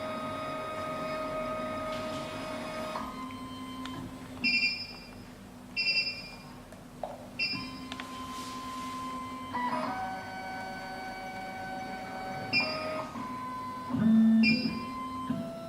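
Stepper motors of an SEC E9 automatic key cutting machine whining in steady tones that change pitch every few seconds as the carriage moves through clamp calibration. Guitar music plays along underneath.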